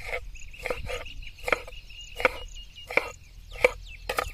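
Kitchen knife chopping leafy herbs on a cutting board, each blade striking the board in a sharp knock, about one every 0.7 seconds.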